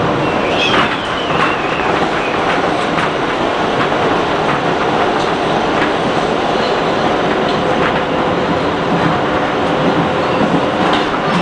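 Kawasaki R160B subway train running at speed, heard from inside the car, its wheels clicking over rail joints. A brief high wheel squeal falls in pitch about a second in.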